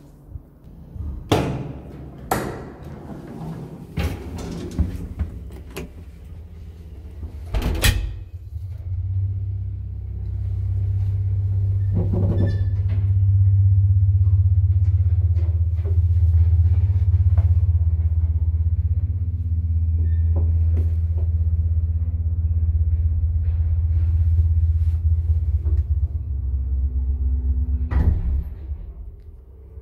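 Several clacks and bangs as the landing and car doors of a 1979 ZREMB two-speed traction elevator shut. Then the car runs with a steady low hum for most of the ride, with a click a few seconds into it. It stops with a clunk at the ground floor.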